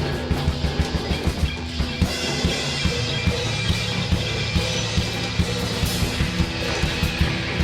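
Shoegaze rock music: a loud, dense wash of guitars over a steadily pounding drum kit.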